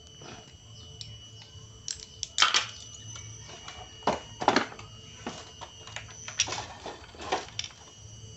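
Metal parts of a Honda Supra Fit engine clinking and knocking as the crankcase and gearbox gears are handled, with several sharp knocks between about two and seven and a half seconds in.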